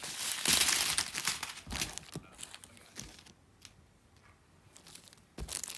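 Small clear plastic zip-lock bags crinkling as they are handled, most strongly over the first two seconds, then a few faint rustles and another short crinkle near the end.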